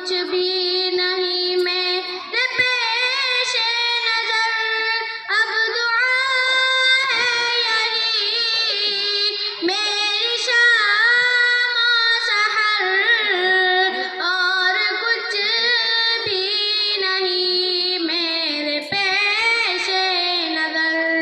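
A girl singing a naat solo into a microphone, drawing out long held notes with wavering, ornamented turns in the melody.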